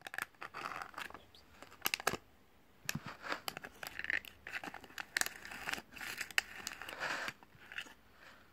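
Thin plastic bag of powder crinkling and rustling in hand as a plastic scoop is dug into it, in irregular clusters of crackles with a short pause about two seconds in.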